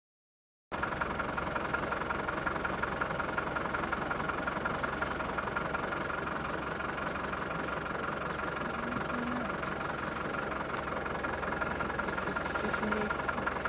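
Safari vehicle's engine running slowly and evenly as it creeps along behind the elephant, a steady drone that cuts in abruptly less than a second in.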